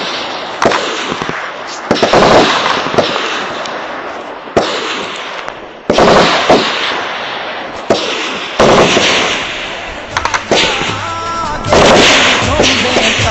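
Gunfire: a string of sharp shots and short bursts, each trailing off in a long echo. Music with held tones comes in near the end.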